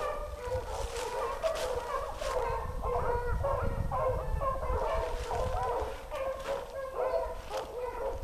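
A pack of beagles baying on a rabbit chase, several voices overlapping without a break, with a few crackles of dry brush and leaves.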